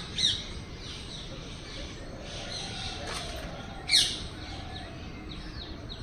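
Small birds chirping, with two loud, sharp calls that sweep down in pitch, one just after the start and one about four seconds in.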